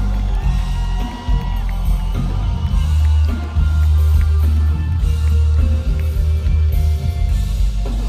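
Live rock band playing through a PA: electric guitar, bass and drums, with a heavy low end.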